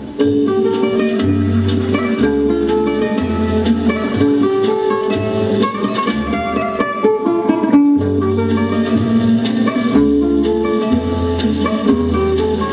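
Music with plucked guitar over a bass line and light percussion, with a short break about eight seconds in.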